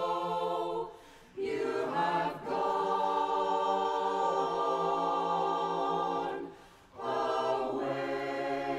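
Mixed barbershop chorus singing a cappella in close four-part harmony: long held chords, broken twice by brief pauses.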